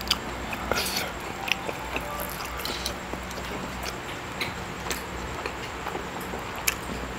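Close-miked eating sounds of marinated grilled lamb: scattered wet clicks and smacks from chewing and from fingers pulling the sticky meat apart.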